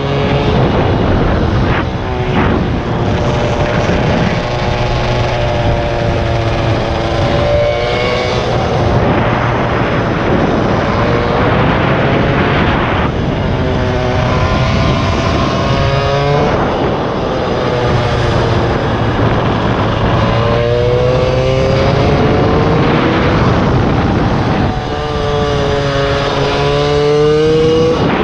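Polini air-cooled 70 cc mini motard engine at racing speed, heard from an onboard camera on the bike. It revs up repeatedly under acceleration, pitch climbing for a few seconds, then drops back as the rider shuts off for the corners, over a constant rush of noise.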